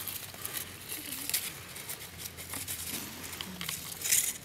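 Soft scraping and rustling of a green twig hook being worked inside a witchetty grub's hole in a chopped-open tree trunk, with scattered small clicks of wood and a louder scrape near the end.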